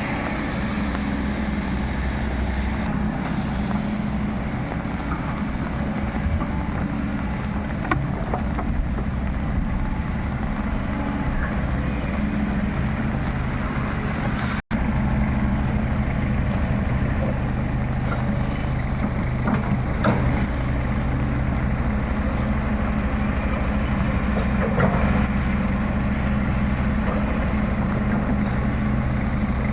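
Excavator's diesel engine running steadily, with a few scattered sharp knocks from the machine at work.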